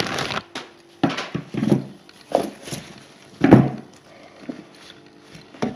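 Rustling and crinkling of tissue-paper and plastic packaging, with knocks from handling, in irregular bursts about once a second as a rifle scope is unwrapped.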